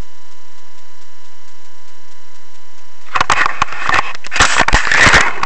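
A steady electrical hum, then from about three seconds in a stretch of rubbing and crackling with many sharp clicks and knocks as the camera is handled and moved.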